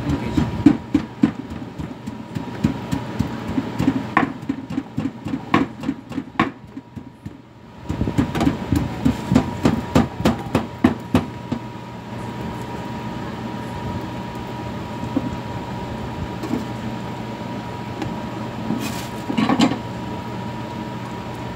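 Jeon (Korean battered vegetable pancakes) frying in oil in pans, a steady sizzle. Over the first twelve seconds or so there is a quick run of clicks and knocks.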